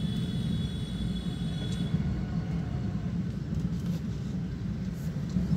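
Steady low rumble of road and engine noise heard from inside a moving car's cabin, with a faint high whine that stops about two seconds in.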